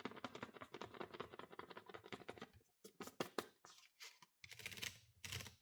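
Faint mechanical clicks and rattles from a Royal 10 manual typewriter being handled: a quick run of small clicks, then a few separate clicks and short rattles.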